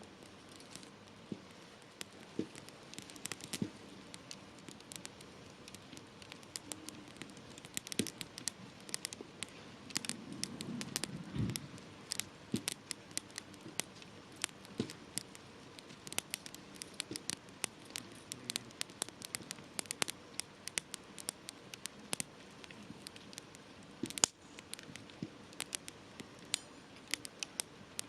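Campfire wood burning, crackling with many sharp irregular pops and snaps over a faint hiss, with one louder pop near the end.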